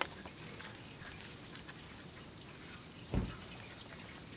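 Steady high-pitched chorus of insects buzzing, with a brief low thump about three seconds in.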